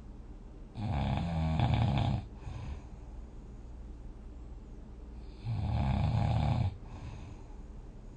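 A person snoring: two loud snores about five seconds apart, each lasting just over a second, low-pitched and rough.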